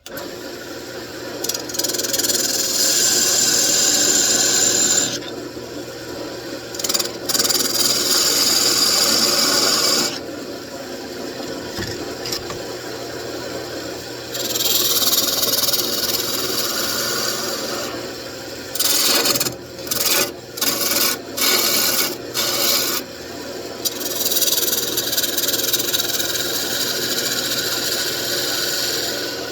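Wood lathe running steadily while a hand-held turning tool cuts into the spinning mahogany, giving repeated hissing, scraping passes: several long cuts of a few seconds each and a run of short quick strokes about two-thirds of the way through.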